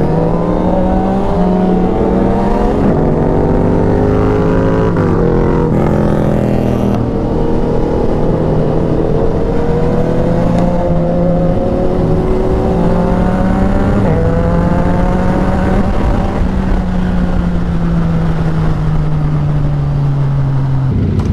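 A superbike engine pulling hard through the gears: its pitch climbs, drops back at each upshift (about five seconds in and again near fourteen seconds), then falls away steadily in the last few seconds as the rider eases off. It sounds loud.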